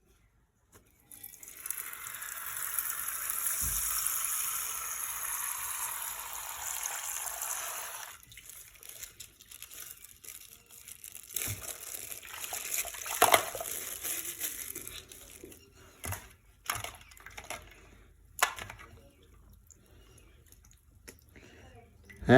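Coloured water pouring out of a popped plastic water bag in a steady rush for several seconds, then the wet plastic bag crinkling and clicking as it is handled and torn open.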